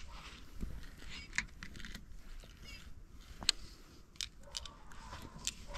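Scattered light clicks and taps from a fishing rod being handled, over a faint steady background.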